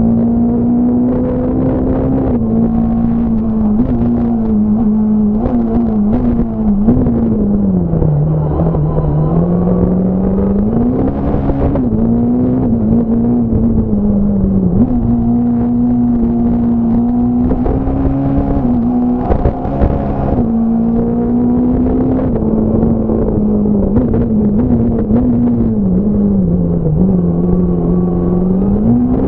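Fiat Punto S1600 rally car's 1.6-litre four-cylinder engine heard from inside the cabin at high revs under hard driving. The pitch holds high with quick dips at gear changes and falls further twice, about eight seconds in and again near the end, before climbing back. Short clicks and knocks come through throughout.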